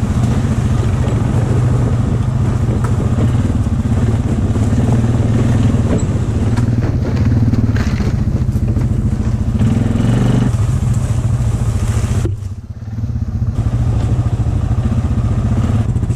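ATV engine running steadily at close range under the rider. About twelve seconds in it drops off briefly, then keeps running.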